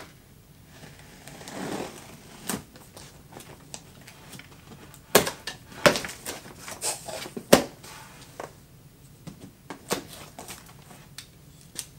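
A knife slitting the packing tape on a cardboard box, then the cardboard flaps being pulled open, with scraping and rustling and several sharp knocks and clicks of cardboard.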